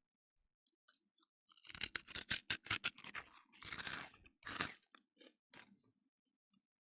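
Spicy Cheetos being crunched and chewed close to the microphone. A dense run of sharp, crisp crunches starts about two seconds in, then thins to a few softer bites near the end.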